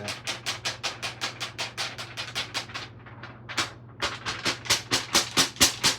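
A sheet of DTF transfer film being shaken back and forth by hand to spread hot-melt adhesive powder over the print, a rapid swishing rhythm of about five strokes a second. It pauses briefly about halfway, then comes back louder.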